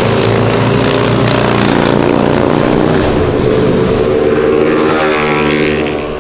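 Porsche 911 flat-six accelerating hard past, its engine note climbing in pitch over a couple of seconds, then falling away near the end as the car moves off.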